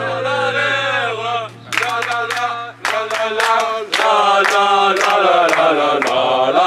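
A group of men singing a chant together in unison. From about two seconds in, rhythmic hand claps keep the beat.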